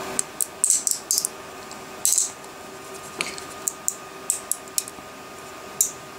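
Small flush-cutting pliers snipping and breaking 3D-printed ABS support material away from a print: a string of irregular sharp clicks and snaps, about a dozen.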